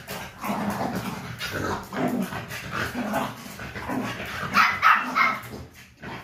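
Beagle barking repeatedly during rough play, a short call about every half second, with the loudest barks about four and a half to five seconds in.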